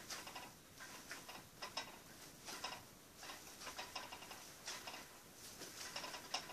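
Bread dough made with lard being kneaded by hand on a wooden table: each push and smear gives a short, faint, crackly rubbing sound, roughly once a second.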